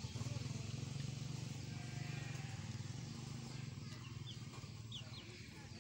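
A low rumble with a fast, even pulse runs throughout, and three or four short, high-pitched peeps come near the end, from a young chick.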